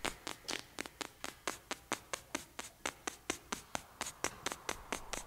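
Soft, quick, fairly even tapping or clicking, about five or six taps a second.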